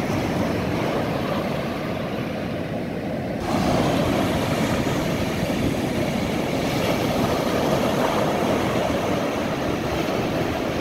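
Steady roar of ocean surf and wind, a little louder from about a third of the way in.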